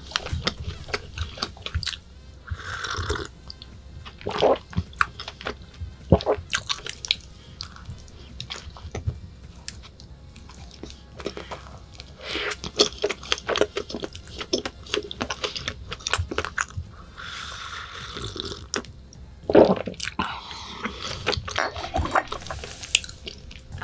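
Close-miked eating sounds: biting and chewing a strawberry pastry, with many irregular wet mouth clicks and smacks.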